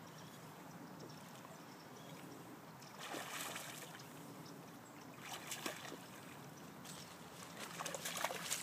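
A small hooked bass splashing at the surface of the pond in short bursts, three times, as it is reeled in to the bank, over a steady background hiss.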